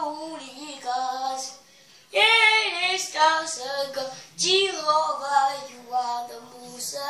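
A young child singing unaccompanied, in short sung phrases with brief pauses between them.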